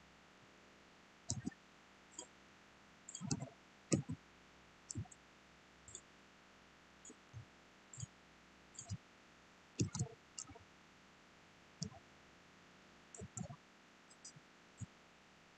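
Computer mouse and keyboard clicking: short, sharp clicks at irregular intervals, some in quick pairs, over a faint steady hiss.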